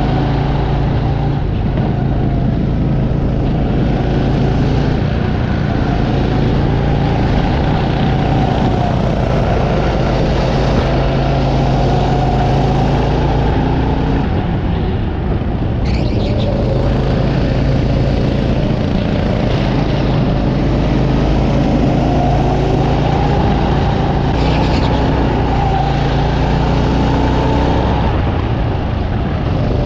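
Go-kart engine running at speed on a track, heard from the driver's seat: a loud, steady drone whose pitch wavers slightly as the kart goes through the corners.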